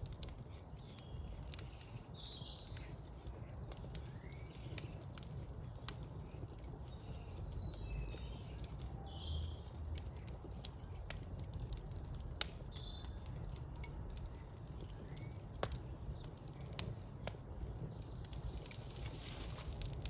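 Wood logs burning in an open brick fireplace, crackling with frequent irregular sharp pops and snaps over a steady low rumble. Birds chirp briefly now and then in the background.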